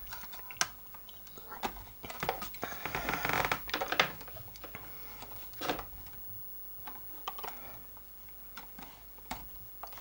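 Cable plugs being pushed into the sockets on the back of a Commodore 1541-II disk drive's plastic case: scattered clicks and light knocks, busiest around three to four seconds in, with the loudest click about four seconds in.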